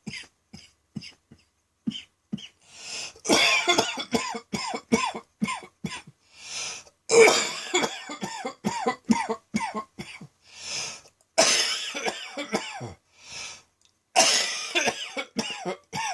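A person in a heavy coughing fit: a few separate short coughs at first, then four long bouts of rapid hacking coughs, with a short breath drawn in between bouts.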